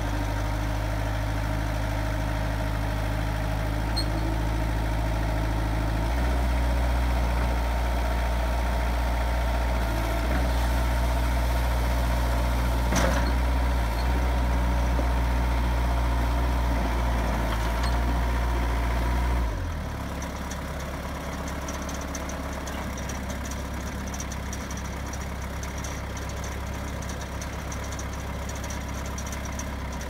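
Bobcat B300 backhoe loader's diesel engine running steadily while the loader hydraulics are worked. Its note changes and gets louder about six seconds in, then drops back and quieter about twenty seconds in.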